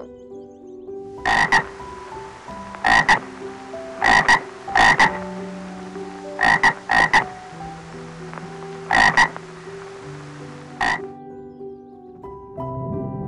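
Tree frogs calling: short croaks in quick pairs and triplets, a cluster every second or two, which stop about eleven seconds in.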